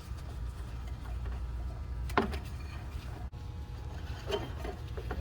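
A few light knocks and rubbing as a drive belt is handled and fed around the engine's fan, the sharpest knock about two seconds in, over a steady low hum.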